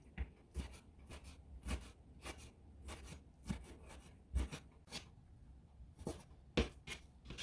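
Kitchen knife dicing chicken gizzards, livers and hearts on a cutting board: a string of sharp chops, about one to two a second and unevenly spaced, some landing with a heavier thud.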